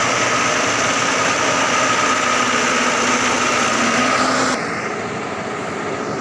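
Heavy truck engine running steadily as the truck crawls along a dirt track, rising a little in pitch near four seconds. About four and a half seconds in the sound cuts suddenly to a quieter, duller engine hum.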